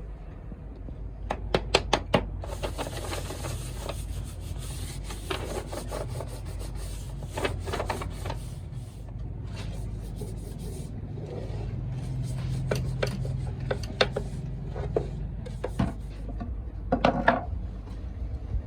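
Wood being rubbed and scraped by hand, with a rasping hiss for the first half and scattered sharp taps and knocks of wooden pieces throughout.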